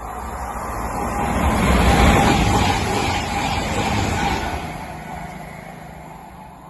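A train passing through at speed: a rushing rumble that swells to its loudest about two seconds in and then fades away.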